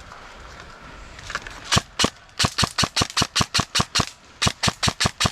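Airsoft gun firing: two single shots, then a fast, even string of shots at about six a second, broken by a brief pause about four seconds in before it starts again.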